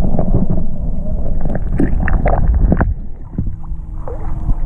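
Water rushing and knocking against an underwater camera's housing as it is pulled through the shallows, a loud low rumble full of small knocks. About three seconds in the camera comes out of the water and the sound drops to a faint steady hum.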